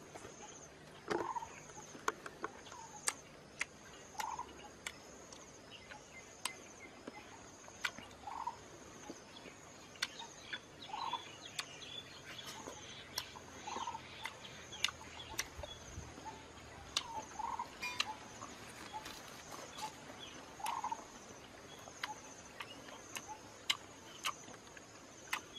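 Wet, sharp clicks and smacks of a person chewing raw honeycomb, coming irregularly. Short bird calls repeat every second or two, over a faint steady high-pitched buzz.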